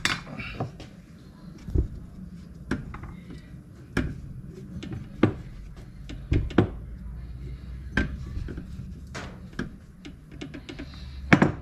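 Irregular knocks and clinks of jackhammer parts being handled and set down during reassembly, about a dozen spread over the stretch, over a low steady hum.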